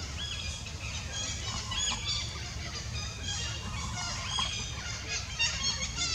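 Many short, high-pitched animal calls and chirps overlapping, some rising and some falling in pitch, over a low steady rumble.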